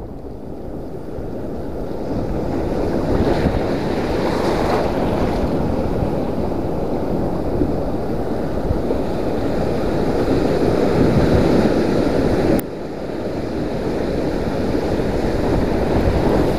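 Sea surf washing over a shallow rocky shore, with wind buffeting the microphone. The wash swells over the first few seconds, drops off suddenly about three-quarters of the way through, then builds again.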